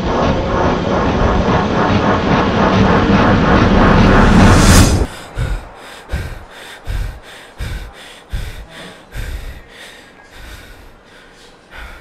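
A loud rushing roar that builds and cuts off suddenly about five seconds in. It is followed by a run of soft low pulses, about three every two seconds, that fade away.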